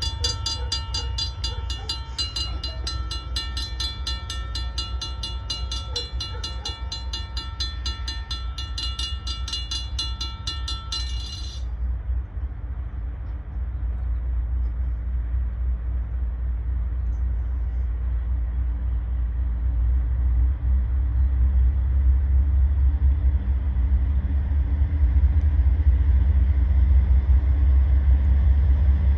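Railroad crossing bell ringing in a fast, even rhythm, stopping abruptly about twelve seconds in once the gates are down. Then a low rumble grows steadily louder as the train approaches the crossing.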